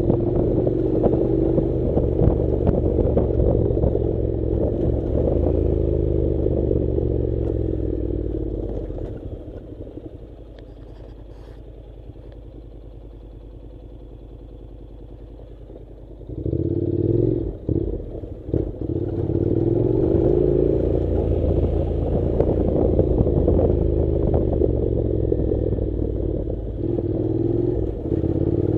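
Honda NC700 parallel-twin motorcycle engine running under way on a gravel track, its pitch rising and falling with the throttle, with clattering over the rough surface. About nine seconds in it drops to a quieter steady sound for several seconds. It then comes back loud with a few knocks and pulls on again.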